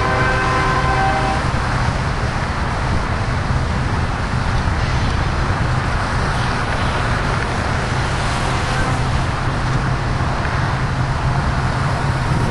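Steady rumble of a passing double-stack intermodal freight train mixed with cars and trucks on the highway close by. A horn sounding a chord of several notes at once holds until about a second and a half in, then stops.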